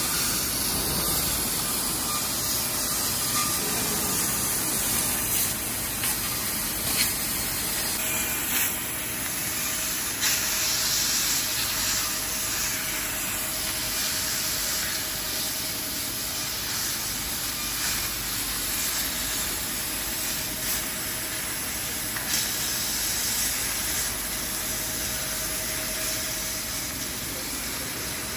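Laser cutting machine cutting titanium sheet: a steady hiss of the gas jet at the cutting head, with a few short louder spikes and a faint steady machine tone coming in about a third of the way through.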